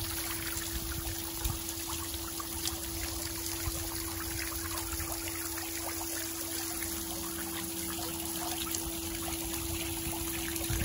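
Backyard pool waterfall splashing steadily into a small dunking pool, with a steady low hum alongside.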